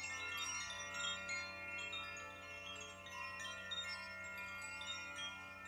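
Hand-held koshi chime being swirled: the clapper inside the bamboo cylinder strikes its tuned metal rods in a continual shimmer of overlapping ringing tones. A low steady tone sounds underneath.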